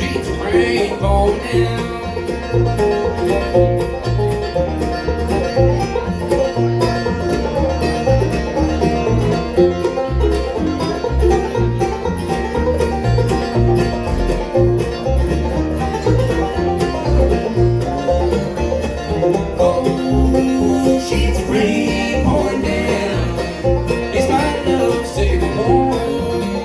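Bluegrass band playing an instrumental break: banjo picking over guitar and a steady, plodding bass line.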